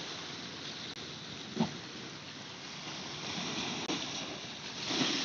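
Steady wind and water noise: small waves washing against the rocks and seawall, with a brief thump about one and a half seconds in.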